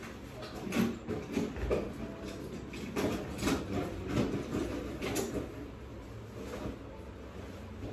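Scattered knocks, clicks and clatter of household things being handled and moved, busiest in the first few seconds and sparser after.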